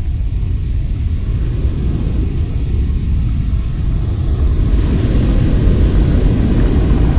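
A low, steady rumble, growing a little louder in the second half.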